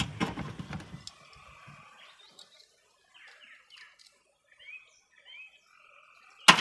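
A knock and a brief rattle of handled parts at the start. Then it goes quiet except for a few faint bird chirps about halfway in, and a sharp knock near the end.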